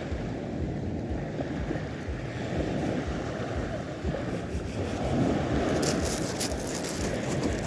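Wind buffeting the microphone in an uneven low rumble, with a brief crackling hiss about six seconds in.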